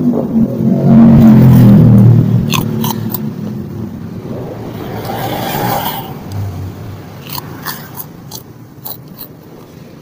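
A motor vehicle engine runs loud for the first two seconds, then fades away. Close-up chewing and biting of noodles and crackers follows, with scattered sharp crunchy clicks.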